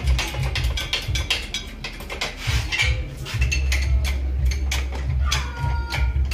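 Metal clinks and clatter from an engine hoist's chain and hook being handled on the engine, over a low rumble. A brief squeal comes about five seconds in.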